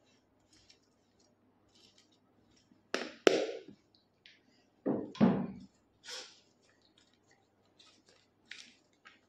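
Things being handled and set down: light rustles and clicks, with two louder knocks about three and five seconds in.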